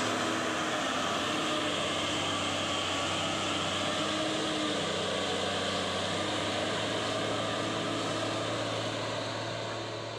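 Mitsubishi Fuso heavy truck's diesel engine running steadily as the loaded dump truck drives past on a dirt road and pulls away, fading near the end as it moves off.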